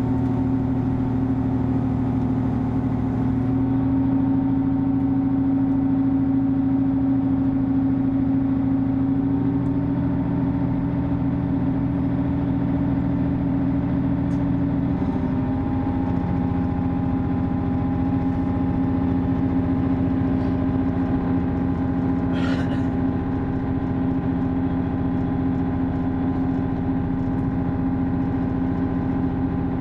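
Class 158 Sprinter diesel multiple unit heard from inside the passenger saloon, its underfloor diesel engine running hard as the train pulls away and gathers speed. The engine note changes about halfway through, and a brief high hiss cuts in near the end.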